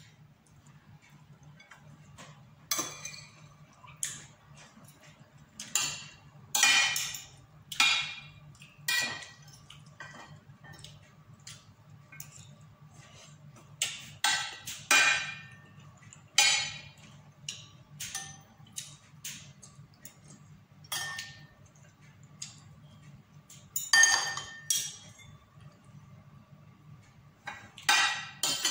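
Metal spoon and fork clinking and scraping against a plate while eating, in irregular clinks every second or so. A steady low hum runs underneath.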